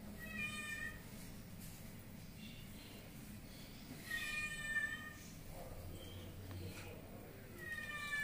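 A puppy whining three times, each a short high-pitched whimper under a second long, the last one falling in pitch: the whine of a frightened puppy.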